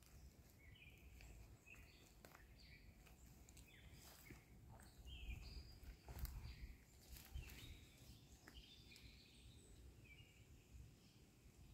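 Near silence with faint, short bird chirps scattered throughout, a few soft clicks, and a low rumble around the middle.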